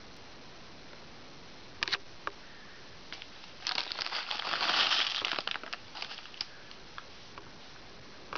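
Plastic bag of crispy chow mein noodles crinkling as a cat paws and noses at it: a few sharp crackles, then a longer burst of crinkling in the middle, followed by scattered clicks.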